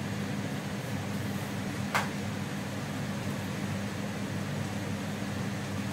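Steady mechanical hum of a kitchen fan, with a single sharp click about two seconds in.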